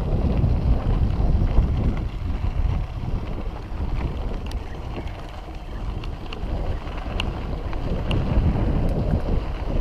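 Wind buffeting an action camera's microphone on a moving mountain bike, over a steady low rumble of the bike rolling along a dirt trail. A few faint short ticks come through in the second half.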